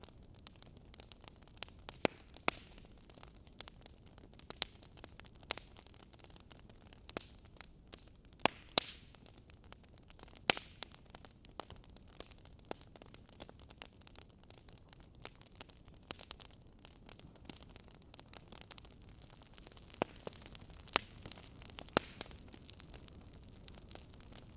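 Wood fire crackling in a fireplace: irregular sharp pops and snaps, a few louder ones spread through, over a faint steady hiss.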